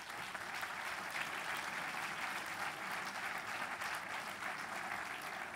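Audience applauding, many hands clapping at an even, steady level.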